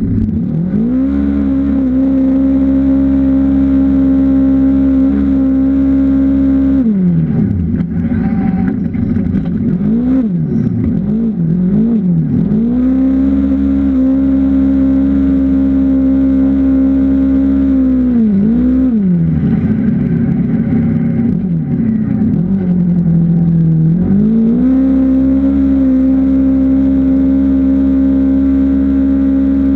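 Off-road racing vehicle engine running at high revs with a steady, held note, falling away three times as the throttle is lifted and then climbing back up to the same pitch.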